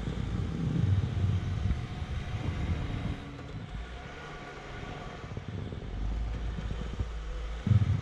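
Ram ProMaster 2500 van crawling forward through deep snow in low gear: its engine pulls steadily while the chained front tyre churns through the snow. The low rumble swells about a second in and again near the end.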